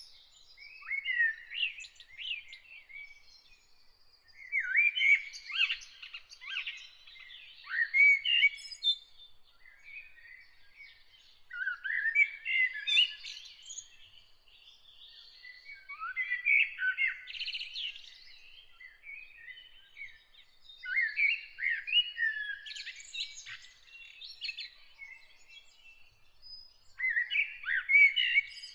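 Songbirds singing in bursts of rapid, varied warbling phrases every four to five seconds, with short pauses between them and a faint steady high tone underneath.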